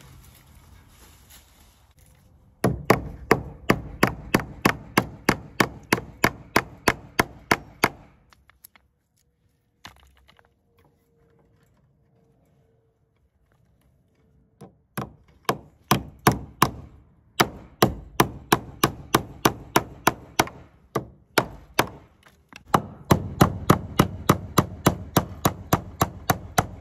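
Hammer driving fence staples into wooden posts to fasten page wire: quick, even blows about three a second in long runs, stopping for several seconds in the middle.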